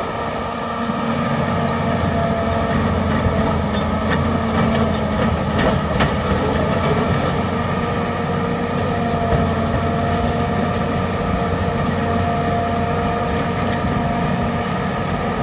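John Deere 850 crawler dozer's diesel engine running steadily while pushing dirt, with a few sharp metallic clanks about four to six seconds in.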